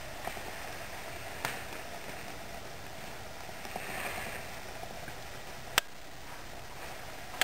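Steady hiss of room noise with a few sharp clicks, the loudest about six seconds in.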